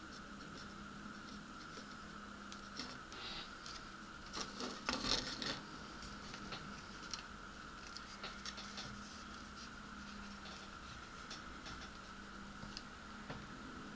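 Hands handling a plastic model-kit part and its wires: light scratching, rubbing and small clicks, with a louder run of scrapes about five seconds in.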